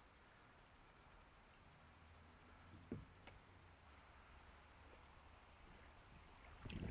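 Steady high-pitched drone of insects singing, growing a little louder about four seconds in, with a few faint knocks about three seconds in and near the end.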